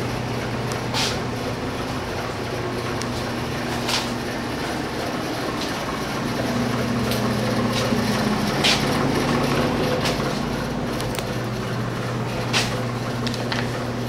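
A steady machine hum holding one low pitch, with a few sharp clicks or taps on top.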